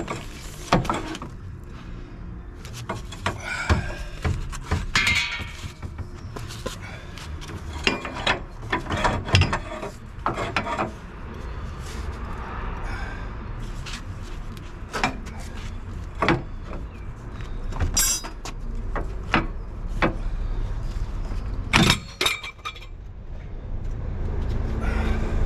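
Irregular metallic clanks and knocks of hand tools and a long steel bar working at a van's stripped front wheel hub.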